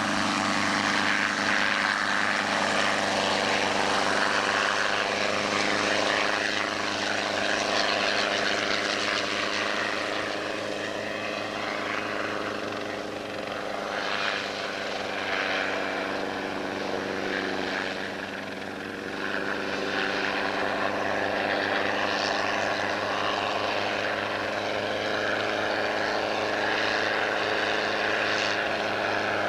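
Light piston helicopter's engine and rotor running steadily as it lifts off and flies past. The sound dips a little in loudness about halfway through, then comes back up.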